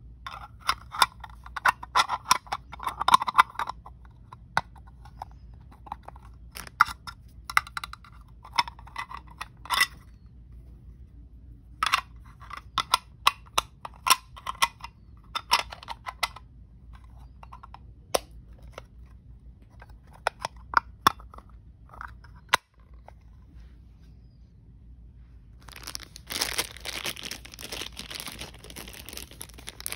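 Plastic wrapping crinkling and crackling in short bursts with sharp clicks as it is handled and torn open. After a short lull it turns into a longer stretch of steady crinkling near the end.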